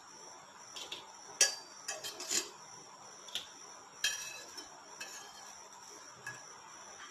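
Metal slotted spatula scraping and clinking against a stainless steel frying pan as ghee-toasted bread slices are lifted out, a handful of light, scattered clinks.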